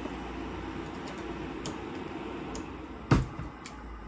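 Low steady room hum with a few faint clicks, and one sharp smack about three seconds in, the loudest sound.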